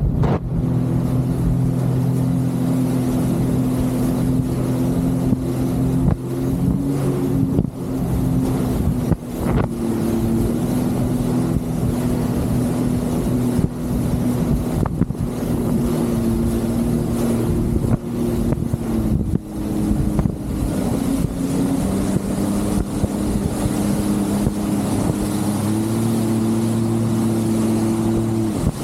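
Jet ski engine running steadily at speed, its pitch stepping down and up a few times as the throttle changes, with wind rushing over the microphone.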